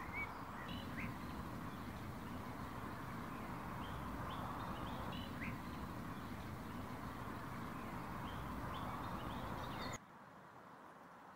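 Birds chirping in short calls over a steady outdoor background hum. The background drops off abruptly near the end.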